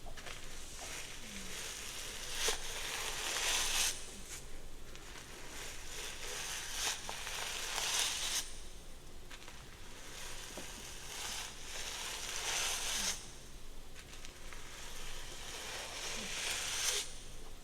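Hair being worked through: a crackly rustle in long passes of a few seconds each, with short pauses between.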